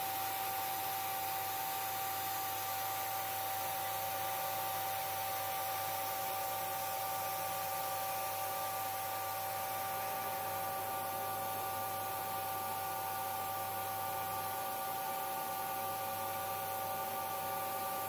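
Milling machine running under CNC feed, an end mill cutting slowly along the face of a square casting: a steady whine at a few fixed pitches over a constant hiss.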